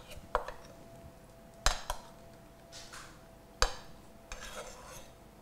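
A metal utensil clinking against a small stainless steel saucepan while cold chunks of butter are broken up in it to melt: a few scattered sharp clinks, the loudest about a second and a half in and again near the middle.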